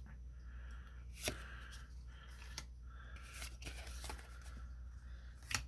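Yu-Gi-Oh trading cards being slid and flipped through by hand: a soft, faint rustle with a few light clicks.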